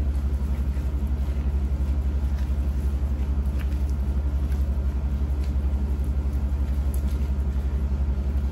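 A steady low hum, like a motor or appliance running, with a fast even pulse. A few faint soft clicks sit over it, from gloved hands pulling cooked pork apart.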